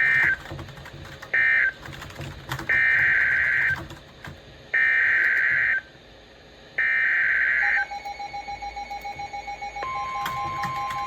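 Emergency Alert System SAME data tones: the last two short end-of-message bursts of one alert, then three longer header bursts of digital screech announcing the next alert. A rapid pulsing beep follows, about four beeps a second, and near the end the steady NOAA Weather Radio 1050 Hz warning alarm tone begins.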